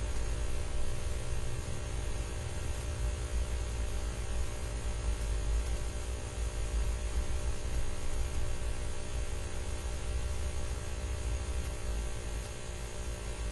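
Steady low hum with an even hiss over it, unchanging throughout: background noise with no speech.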